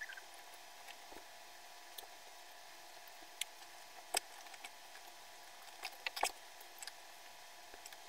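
Light handling sounds as a fabric bed cover is smoothed flat on a bed: scattered soft taps and clicks, a few sharper ones about four and six seconds in, over a steady faint hum.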